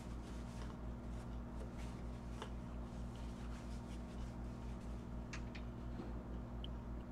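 Faint rustling of a paper napkin as hands are wiped, with a few small clicks, over a steady low electrical hum.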